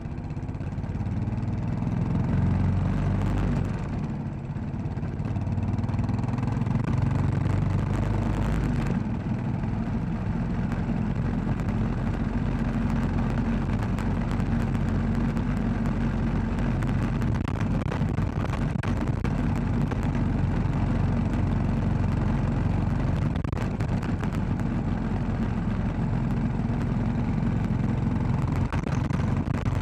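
Royal Enfield Classic 500's single-cylinder engine running under way. It picks up over the first couple of seconds, eases off briefly about four seconds in, then runs steadily.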